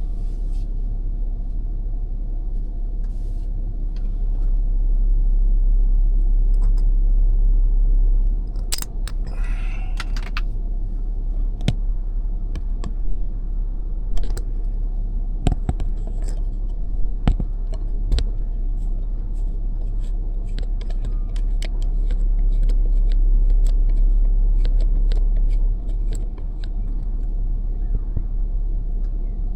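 Road noise from a moving car: a steady low rumble that swells twice, with scattered small clicks and rattles through the second half.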